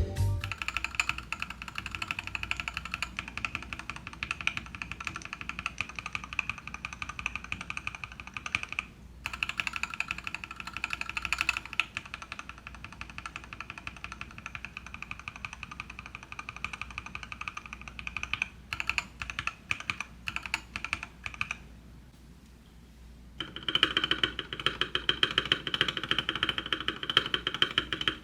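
Rapid clicking and clacking of C³EQUALZ Tangerine 62g linear keyboard switches, pressed in quick runs with short pauses, comparing the switches stock, lubed, and lubed and filmed. After a short quiet gap about 23 seconds in, steady typing starts on a foam-modded GamaKay LK67 keyboard with lubed and filmed Tangerine switches and PBT keycaps.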